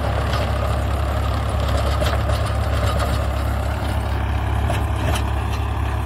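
Swaraj 855 tractor's three-cylinder diesel engine running steadily under load while it drives a rotavator through dry soil.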